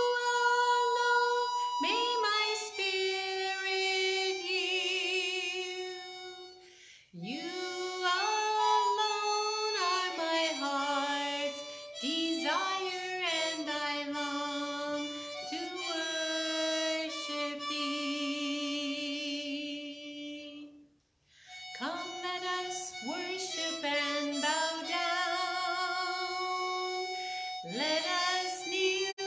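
A woman singing a worship song with vibrato, accompanied by a harmonica. The music breaks off briefly between phrases about seven seconds in and again about twenty-one seconds in.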